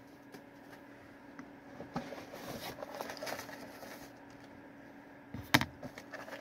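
Faint rustling and light knocks of a cardboard Fruit Roll-Ups box being handled, with one sharper knock about five and a half seconds in, over a low steady hum.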